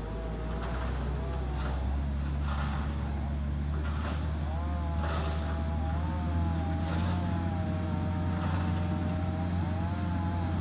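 A motor grader's diesel engine runs steadily under load with a deep drone, growing a little louder over the first couple of seconds. Higher wavering tones rise and fall slowly above it.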